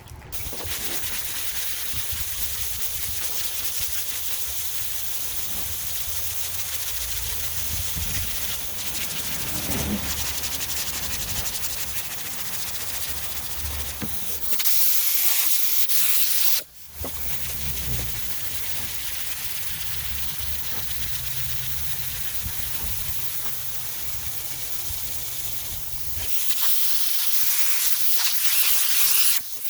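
Hand block sanding of high-build primer with 220-grit paper on a large foam block: a steady scratchy hiss. Twice, about midway and near the end, it turns into a louder, brighter hiss for a few seconds, compressed air blowing sanding dust off the panel so the paper doesn't clog.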